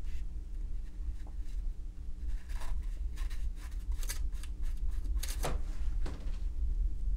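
A paintbrush scratching and rubbing across watercolour paper in a run of short strokes, with two strokes near the end sliding down in pitch. A steady low hum runs underneath.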